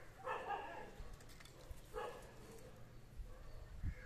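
Two short animal calls in the background, about two seconds apart, with a few low thumps near the end.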